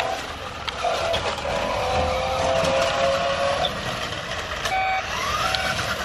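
DEERC DE60 1:8-scale electric RC monster truck driving across a wet wooden deck. Its motor whines at a steady pitch that steps up and down with the throttle and rises sharply about five seconds in, with a few clicks and knocks from the wheels and chassis.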